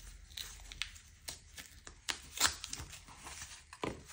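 Rustling and a scattering of sharp clicks and snaps as a cardboard sleeve held shut with tape is pulled apart and the plastic card toploaders inside are handled.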